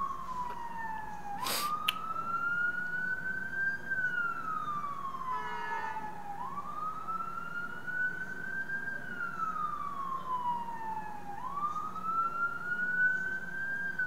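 Ambulance siren on its wail setting, sliding slowly up and down in pitch about every five seconds. A single sharp click comes about two seconds in.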